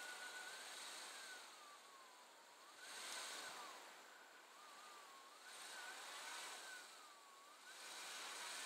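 Faint four-wheel-drive car working in deep snow and barely moving. A thin whine falls and climbs back every couple of seconds, and a louder hiss surges about every two and a half seconds as the engine is revved and eased off.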